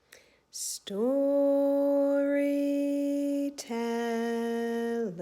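A woman singing two long held notes without words, the second a little lower and sliding down at its end, with a breath drawn before the first.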